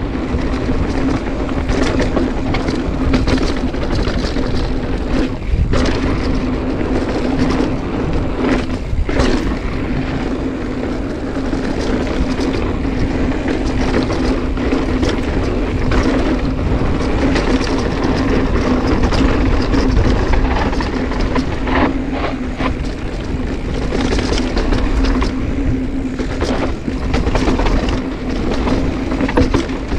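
Mountain bike being ridden down a dirt trail: a continuous rush of wind and tyre noise with a steady low hum, broken by frequent knocks and rattles over bumps.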